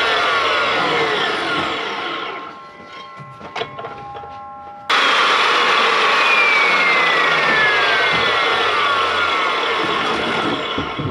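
Evolution metal-cutting chop saw running and cutting into thick steel plate, a loud grinding noise with slowly falling pitches. It dies away about two and a half seconds in to a faint ringing and a few clicks, comes back abruptly about five seconds in, and fades out near the end.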